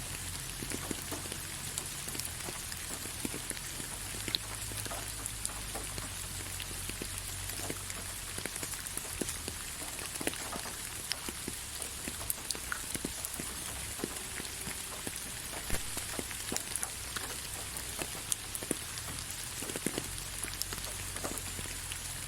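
Steady rain falling on leaves, a continuous hiss with many separate drops pattering and ticking irregularly throughout.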